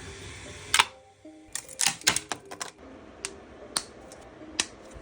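Irregular sharp plastic clicks and clacks from a 3D-printed toy gun fidget spinner being worked by hand, loudest near the start and about two seconds in.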